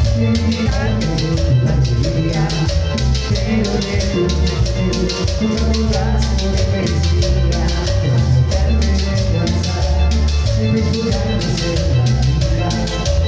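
Cumbia sonidera band playing an instrumental passage with a steady dance beat: bass, drum kit and hand percussion under a melodic line, with no singing.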